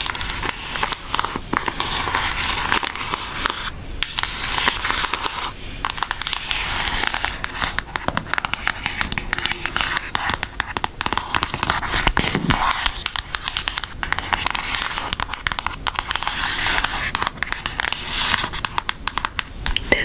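Long acrylic fingernails scratching and tapping over the cover of an eyeshadow palette, close to the microphone: a continuous run of tiny crackly clicks and scratches.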